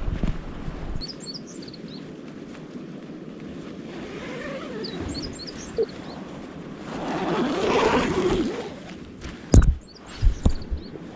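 Open-air ambience with a small bird's quick high chirp phrases, repeated several times. Partway through a rushing swell of noise rises and dies away, and a few sharp knocks come near the end.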